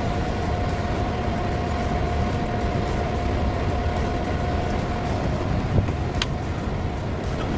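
Large exhaust fan running with a steady low rumble and a constant hum. A small knock and a sharp click come about six seconds in.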